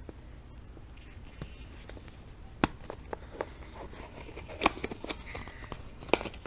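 Small plastic RC truck parts being handled while the servo horn is repositioned: scattered sharp clicks and taps, busier in the second half, with three louder clicks about two and a half, four and a half and six seconds in.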